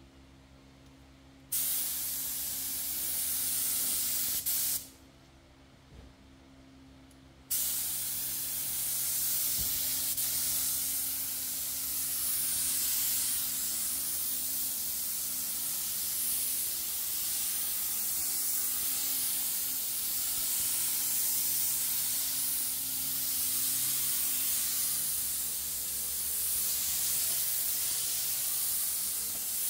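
Air-fed gravity-cup paint spray gun hissing as it sprays paint onto a steel panel: a burst of about three seconds, a pause of a few seconds, then one long, continuous spray.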